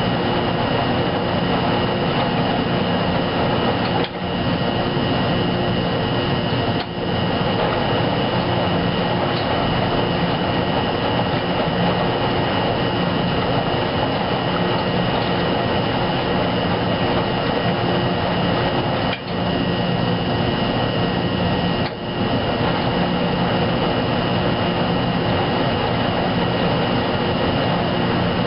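Wascomat Junior W73 commercial front-load washer tumbling a wet load: the motor runs steadily and water and clothes slosh in the turning drum. The sound drops out briefly four times.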